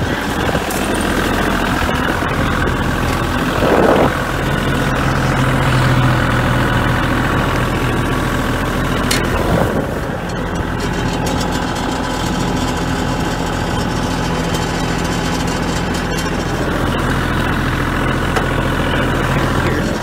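Kioti compact tractor's diesel engine idling steadily, with a brief clunk about four seconds in and another about halfway through.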